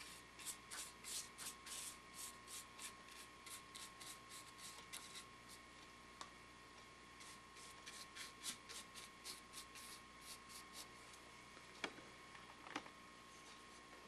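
Quick back-and-forth scrubbing strokes, about three a second, of a small hand-held scrubber on a carved wooden base. There is a pause of a second or two midway, and two sharp clicks near the end.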